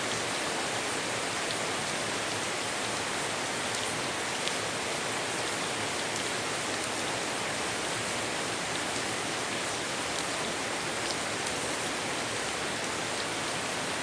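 Steady rain falling: an even hiss with a few individual drops ticking through it.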